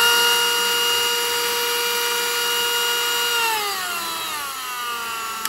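BAUER 20V cordless rotary tool with flexible shaft running at its top speed setting with a steady high whine. About three and a half seconds in it is switched off and winds down, its pitch falling away. The owner takes its motor for a brushed one.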